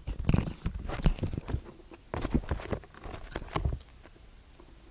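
Handling noises from a shipping parcel: a quick run of taps, knocks and rustles as it is turned over and handled, stopping about a second before the end.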